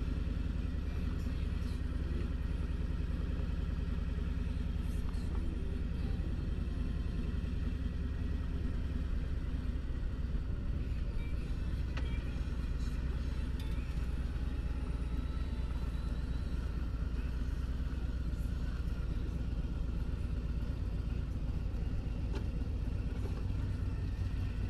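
Harley-Davidson Ultra Limited motorcycle's Milwaukee-Eight 114 V-twin engine running steadily at cruising speed, with a deep, even rumble and wind noise while riding.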